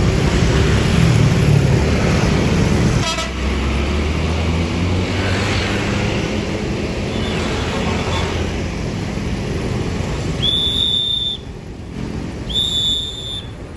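Buses and road traffic passing with steady engine noise, heaviest in the first few seconds, then two short high-pitched toots about a second apart near the end.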